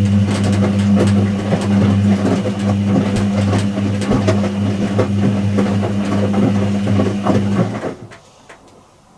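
Whirlpool AWG023 top-loading washing machine running: a steady low hum with clicking and rattling over it. It cuts out suddenly about seven and a half seconds in.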